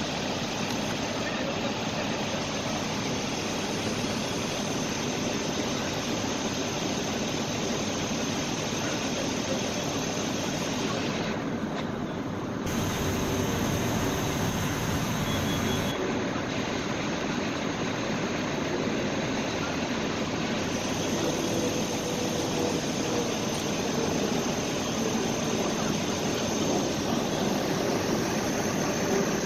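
Fire apparatus engines running in a steady, unbroken roar, which grows a little louder and brighter for a few seconds about halfway through.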